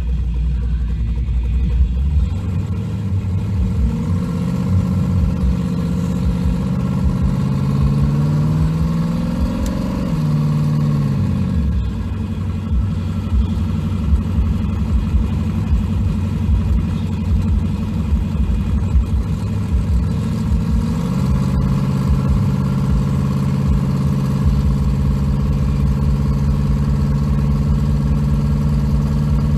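Engine of a 1500-horsepower Chevrolet S10 street truck, heard from inside the cab: it idles, then the revs climb as the truck pulls away and drop sharply about eleven seconds in. The engine steps up again about twenty-one seconds in and holds a steady cruise.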